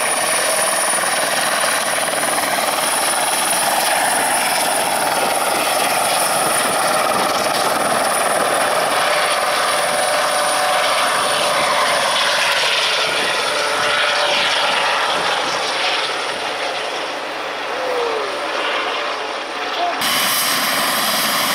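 Eurocopter EC120 Colibri helicopter hovering low over the ground, its single turboshaft engine whining and its main rotor thudding steadily. The noise eases a little near the end.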